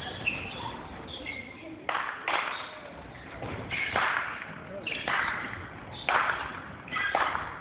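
A group of children making sharp sounds together about once a second at uneven intervals, each ringing out in the large sports hall, with voices calling among them.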